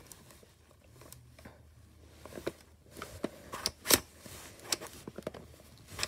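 Plastic clicks and small knocks as the rotating rings of a cylindrical picture puzzle box are twisted by hand. The clicks are scattered, mostly in the second half, with the sharpest about four seconds in.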